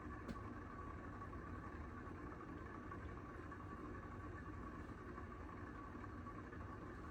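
Heritage Alexis hugger ceiling fan running steadily: a faint hum with a thin steady whine from its worn bearings. A small click sounds shortly after the start.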